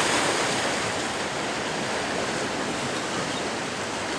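Steady rushing wash of ocean surf, slightly louder at the start.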